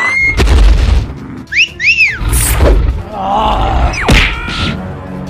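Cartoon sound effects over background music: booming low hits and rumbles, two quick rising-and-falling whistle glides about a second and a half in, and a falling whistle ending in a sharp hit near the end.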